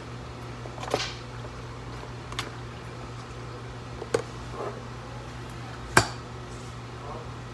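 Cookware and utensils being handled: a handful of sharp knocks and clatters, the loudest about six seconds in, over a steady low hum.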